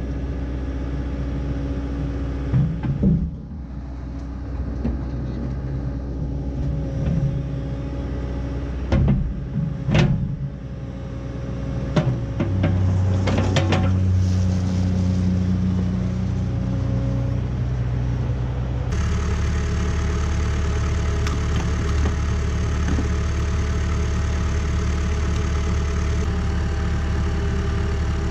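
Cat 305E2 mini excavator's diesel engine running as its hydraulic arm works, with several sharp metal clanks in the first half as a bucket is picked up off the trailer and locked onto the coupler. The engine note rises under hydraulic load about twelve seconds in. After an abrupt change near the end a steady engine hum runs on while the excavator is being refuelled from a hose nozzle.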